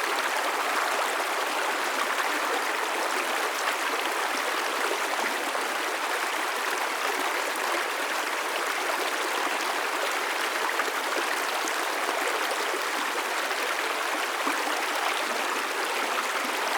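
A river or stream flowing steadily over rocks: a constant rushing of water with fine splashing and trickling, no pauses or changes.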